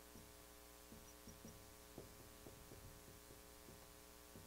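Near silence: a steady electrical hum with faint, irregular ticks and taps of a marker writing on a whiteboard, a few each second.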